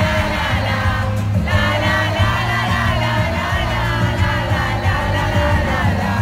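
Live pop band playing loudly, heard from among the audience, with voices singing along over the music.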